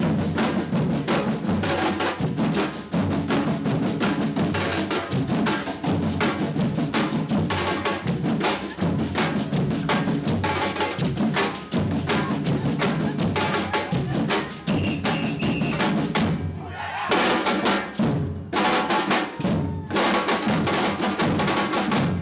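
Samba batucada percussion band playing a driving groove of bass drums and snares with dense, fast strokes. About sixteen seconds in the low drums drop out briefly and the band switches to a pattern of separate accented hits.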